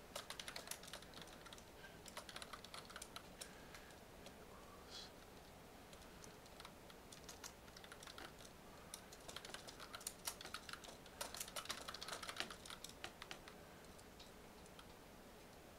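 Typing on a computer keyboard: quick runs of keystrokes with a sparser stretch in the middle, and the keys falling quiet near the end.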